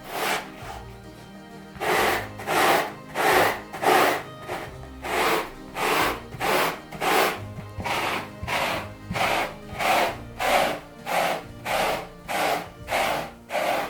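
Rhythmic back-and-forth rubbing or scrubbing strokes, about two a second, starting about two seconds in after a single stroke at the very start.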